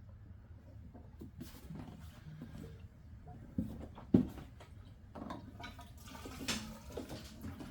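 Gasoline pouring faintly from a vented no-spill gas can's nozzle into a container that is nearly full. Two sharp knocks come about three and a half and four seconds in.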